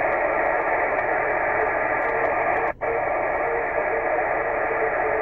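Receiver hiss from a 10 GHz amateur microwave station's single-sideband receiver: steady, band-limited noise with a faint tone coming and going under it. The audio cuts out for an instant a little past halfway.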